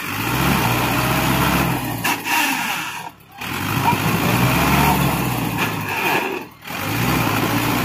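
Mahindra Arjun diesel tractor engine running steadily, broken by two brief dips in sound.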